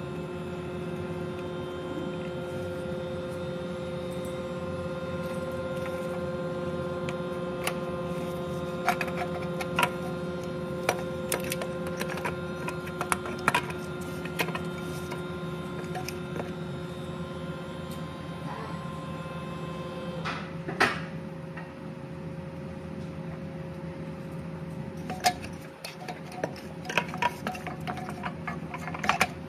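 Scattered metal clicks and knocks from hand tools and a truck starter motor being worked loose and fitted, in two clusters, over a steady hum.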